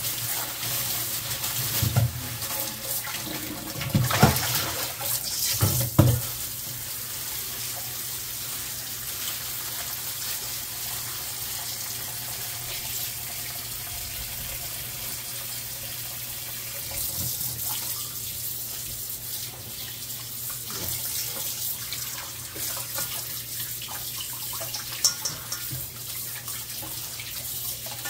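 Kitchen tap running into a stainless-steel bowl in the sink while hands rinse and turn raw meat in the water. A few louder bumps and splashes stand out in the first six seconds.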